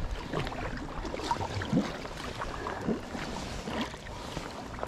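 Sea kayak being paddled on calm lake water: the paddle blades splash and drip at each stroke, about once a second.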